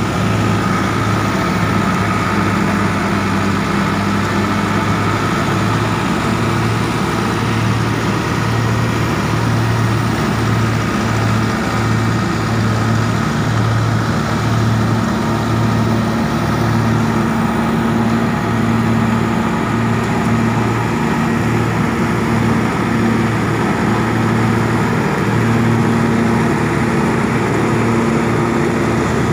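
Massey Ferguson 385 tractor's diesel engine running steadily under load, driving a straw reaper (chopper machine) that cuts and chops wheat stubble, the engine's low hum and the machine's whir blending in one continuous sound.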